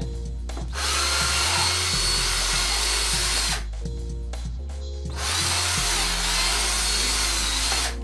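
Power drill running in two bursts of about three seconds each, boring a larger hole through a microwave's plastic control panel, with a steady whine over the drilling noise.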